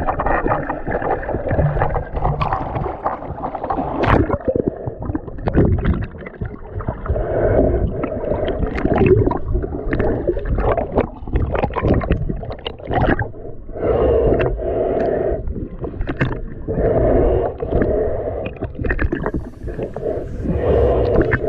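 Muffled water sloshing and gurgling, with many short knocks and splashes, as picked up by a GoPro HERO 7 Black's microphone in the sea.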